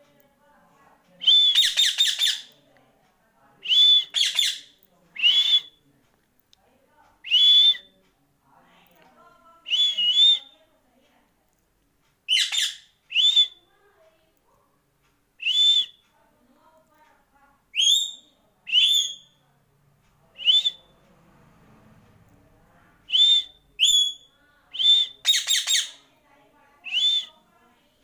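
Indian ringneck parakeet whistling: short high whistled notes, in ones, twos and threes, with gaps of a second or two between them.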